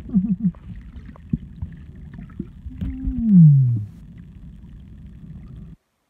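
Underwater sound picked up by a camera on a coral reef: a low rumble with scattered clicks. About three seconds in comes a loud tone that falls steadily in pitch over about a second. The sound cuts off suddenly near the end.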